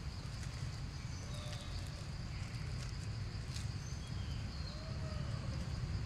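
Forest ambience: a steady high insect drone over a low rumble, with a few short chirping calls scattered through.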